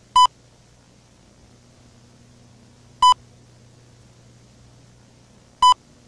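Three short, sharp electronic beeps about three seconds apart, over a faint steady low hum and tape hiss.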